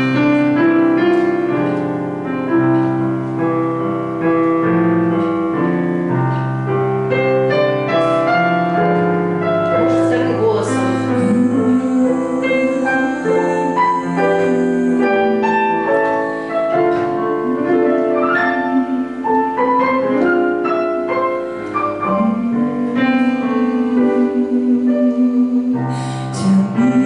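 Digital piano playing a slow, quiet ballad introduction in steady chords and melody. A woman's voice joins it in places, singing softly without words.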